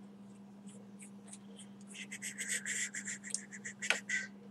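Fingers working a small metal vape atomizer: a few light clicks, then about two seconds of dense scratchy rubbing and crackling. A steady low hum runs underneath.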